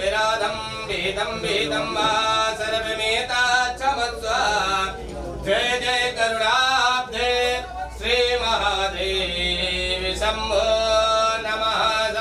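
A man chanting a devotional hymn in a sung, melodic style, holding notes for a second or more between short breaths.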